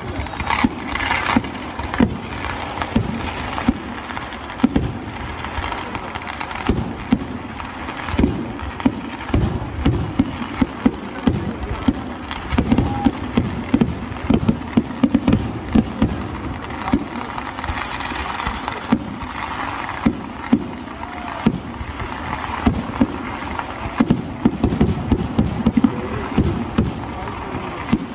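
Kerala temple-festival fireworks (vedikkettu): a continuous barrage of aerial shells and crackers going off in a rapid, irregular series of bangs, densest in the middle stretch.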